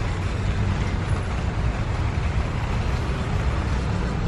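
Steady low rumble of outdoor background noise, with no distinct single event.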